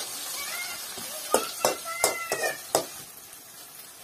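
Chopped onions sizzling in a kadai over a wood fire, a metal spoon knocking and scraping against the pan four or five times in quick succession about a second and a half in. Short, high wavering cries sound over it near the start and again about two seconds in.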